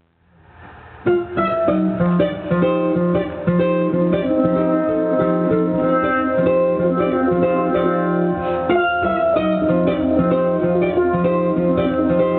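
Pair of steel pans played live: quick ringing melody notes over a repeating lower figure, fading in during the first second.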